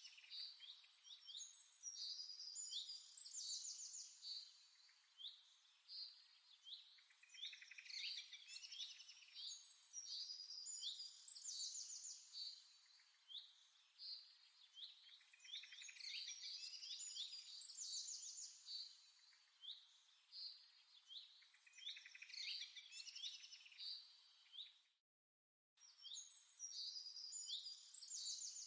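Faint birdsong: many quick chirps and fast trills, high-pitched, cutting out completely for under a second near the end.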